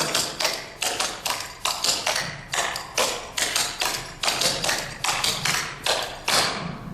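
Clogging taps striking a hard floor in a quick, even rhythm of repeated triple steps with rock steps, several sharp taps a second.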